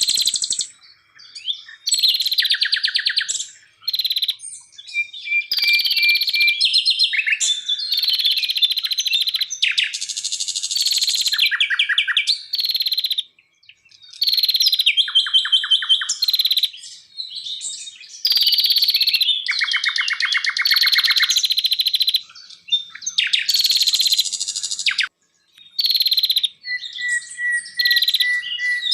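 Forest songbirds singing: a fast, varied string of whistled phrases, rattling trills and sharp chirps, broken by short pauses, including a steady whistled note about a third of the way through and another near the end.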